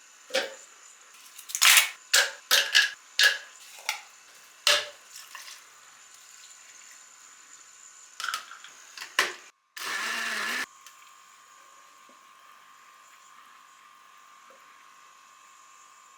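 A quick run of clicks and knocks of kitchen things being handled. Then a blender runs for just under a second, starting and stopping abruptly, most likely while making a smoothie.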